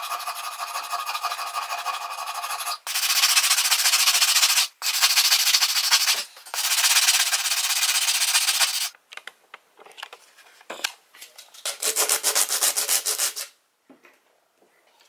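A hand file scraping old paint and rust off a steel hatchet head clamped in a vise, stripping it down to bare metal, in long runs of strokes with short breaks. Near the end comes a burst of quick, short strokes, then the filing stops.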